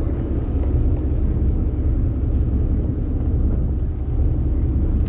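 Boat engine running steadily, a constant low rumble.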